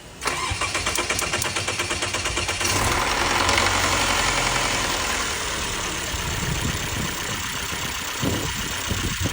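Mercedes-Benz M264 turbo four-cylinder petrol engine cranking for about two seconds, then catching and settling into a steady run.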